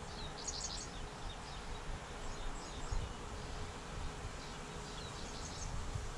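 Creekside ambience: a steady faint insect hum, with short high bird chirps in clusters about half a second in and again near the end, over an uneven low rumble.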